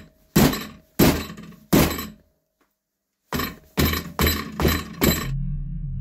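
Hard hammer blows on a flexible TPU 3D-printed RC-car wing clamped in a steel bench vise: three heavy strikes, a pause, then five quicker ones, several leaving a short metallic ring from the vise. The wing does not crack.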